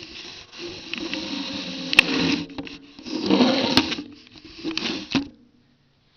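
A handheld video camera being handled and adjusted right at its built-in microphone: whirring, rubbing noise in several stretches, with two sharp clicks, about two and about four seconds in.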